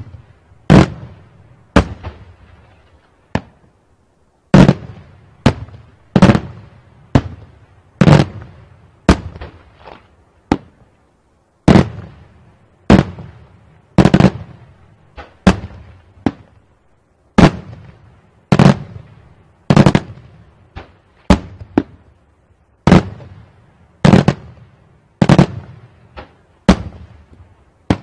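Daytime aerial fireworks shells bursting overhead in a rapid series of loud bangs, about one a second, each trailing off in echo.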